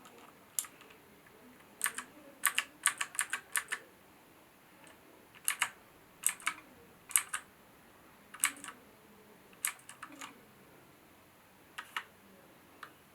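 Keys of a HyperX Alloy FPS Pro mechanical keyboard with Cherry switches being typed on: sharp clicks in irregular runs, a quick burst of about ten keystrokes near the start, then scattered groups of two or three.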